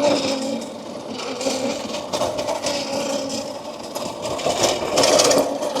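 Electric mini bike being ridden: a steady motor whine under the rattle and clatter of the bike's chain and frame.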